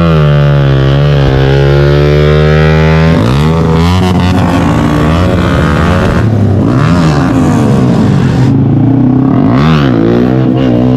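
Sport motorcycle engine held at high revs, then revved up and down several times from about three seconds in, its pitch rising and falling in repeated swells.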